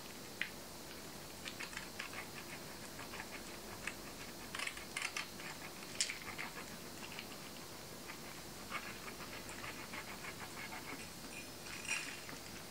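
Parmesan cheese being grated on a stainless steel rasp grater: faint, short scraping strokes in irregular clusters.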